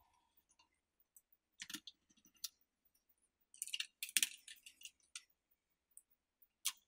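Scattered clicks and light taps of a hand tool and screws against a Stihl 017 chainsaw's housing as the engine is screwed down, with a busier run of clicks about three and a half to four and a half seconds in.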